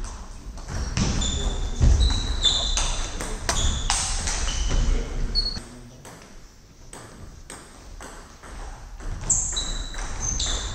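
Table tennis rally: the celluloid-type ball ticking off the table and the rubber-faced bats in quick succession, each contact a short sharp ping. The hits stop about halfway through for a few seconds between points, then a new rally starts near the end.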